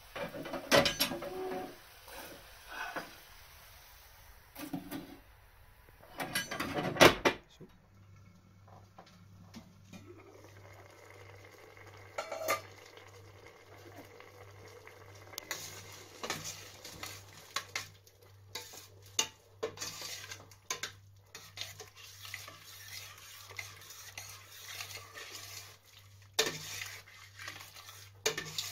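Metal cookware clanking on a cast-iron range: a few loud knocks as the oven door is worked and a pan goes in. Then a spoon scrapes and taps around a steel pot of soup as it is stirred, with a low steady hum behind it.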